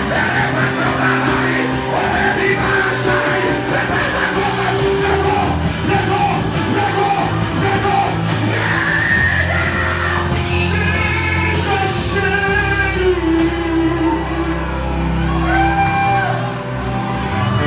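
Live worship music: a band with sustained bass notes, and voices singing and shouting over it.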